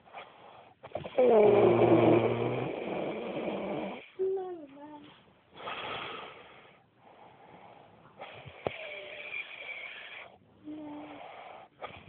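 A man snoring loudly in a series of irregular snores. The loudest starts about a second in and lasts nearly three seconds, its pitch falling, and shorter, quieter snores follow.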